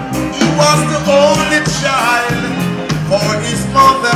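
Live reggae band playing, with a male vocalist singing over it into a microphone through the stage PA.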